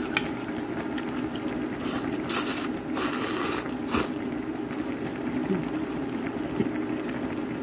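Ramen noodles being slurped off chopsticks in a few loud sucks, the longest about three seconds in. Under them is the steady low bubbling of the pot of ramen still boiling on the burner.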